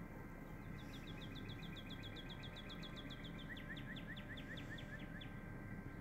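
A small songbird singing a rapid trill of short down-slurred notes, about ten a second, that changes near the middle into a slower series of lower notes and stops a little before the end, over steady low background noise.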